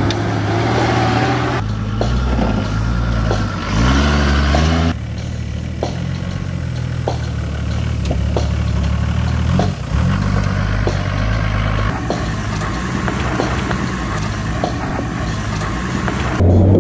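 Toyota LandCruiser 60-series four-wheel drives crawling over rough, rutted dirt at low revs, engines running steadily, with the revs rising briefly about three to four seconds in. Several short clips cut together, so the engine note jumps in level a few times.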